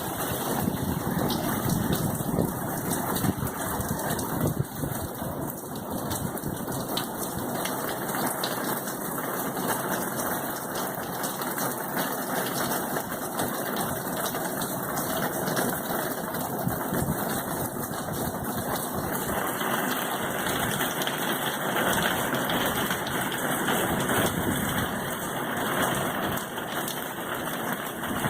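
Heavy hurricane rain falling in a steady, even downpour.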